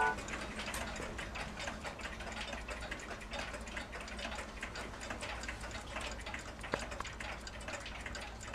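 Several mechanical clocks ticking at once, their ticks overlapping into an uneven patter, with one sharper click late on.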